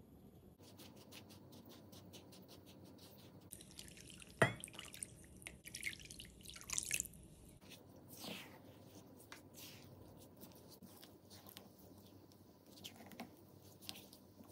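Faint clicks of a measuring spoon in rice flour, then a single drip-like plop and splashing as liquid goes into the bowl. After that, soft scraping as a silicone spatula mixes the wet rice flour in a ceramic bowl.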